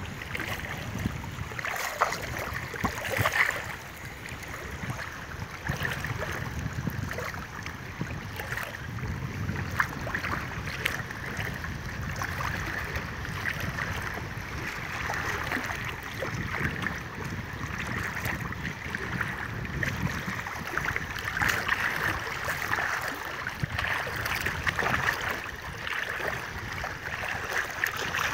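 Shallow sea water sloshing and splashing around the legs of people wading through it, a continuous wash dotted with small irregular splashes, with wind buffeting the microphone.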